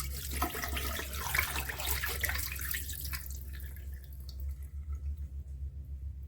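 Dirty water from the Dreame H12S wet-dry vacuum's waste tank splashing and dripping as it is emptied, thinning to a few drips after about four seconds, over a steady low hum.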